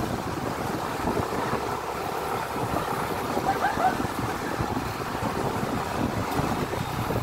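Motorcycles riding along at low speed, their engines running under steady wind rush buffeting the microphone of the camera on a moving bike.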